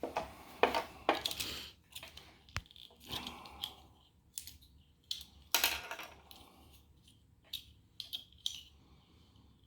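Irregular clicks, knocks and clatter of hard plastic parts as a Wii Fit board is taken apart by hand, with the loudest knocks about a second in and about five and a half seconds in.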